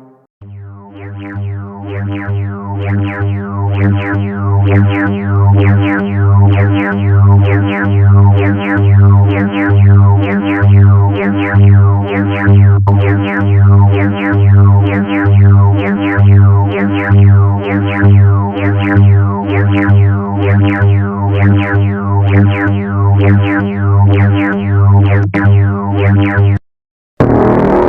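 Synthesized emergency alert alarm tone pulsing in a steady repeating rhythm, each pulse a chord of steady tones topped by a quick falling sweep. It cuts off suddenly near the end, and after a brief gap a different, harsher alarm sound starts.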